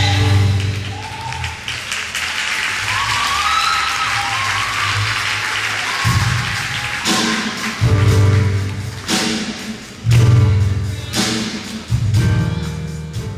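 A church choir's final held chord ends, and the audience applauds. About six seconds in, a band starts playing short bass-and-drum hits roughly once a second over the clapping.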